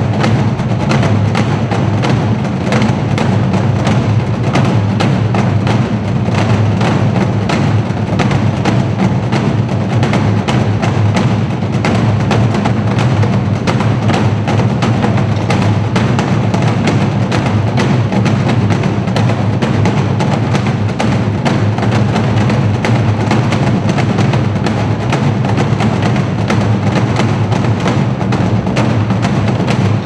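Korean traditional drum ensemble playing a fast, dense rhythm, many players striking janggu (hourglass drums) on stands together, with a steady stream of sharp strikes over a strong low drum tone.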